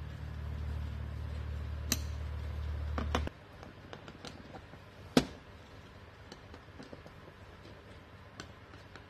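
Small metallic clicks and taps of a Phillips screwdriver on the accelerator pump cover screws of a Honda N600 carburetor, with one sharper tap about five seconds in and faint ticks after it. A low steady hum stops abruptly a little over three seconds in.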